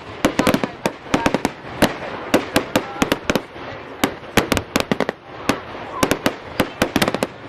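Fireworks going off in quick succession: a dense, irregular run of sharp bangs and cracks, several a second, with hardly a pause.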